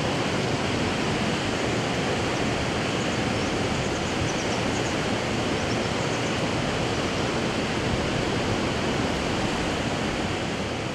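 Steady, even rushing outdoor noise on the river, with no distinct events, easing off slightly at the very end.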